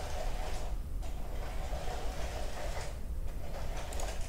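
LEGO train motor whirring as the train runs on plastic track, stopping briefly and starting again in reverse every second or two as it shuttles between two colour tiles. A couple of sharp clicks near the end, after which the motor stops.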